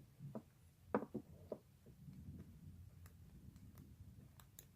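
Faint clicks and taps of a lock pick and tension wrench working in the keyway of a small brass padlock, a few scattered clicks a second apart, with a faint low rumble behind them from about two seconds in.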